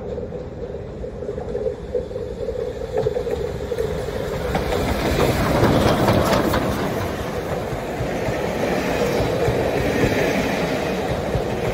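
Southern Railway S15 class steam locomotive No. 847, running tender-first and rolling quickly downhill, approaches and passes close by. It is loudest about six seconds in as the engine goes past, with a steady drone before that, and its coaches then roll past on the rails.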